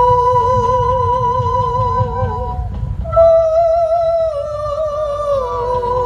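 Live music for a folk dance: a high melody of long held notes with a wide, wavering vibrato over a low steady rumble, breaking off briefly and coming back louder about three seconds in.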